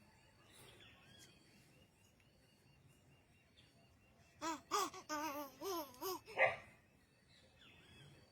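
A young child's voice: a short run of babbling, laughing syllables with a pitch that bends up and down, about four and a half seconds in and lasting around two seconds. Before it there is only a faint, thin, steady high tone.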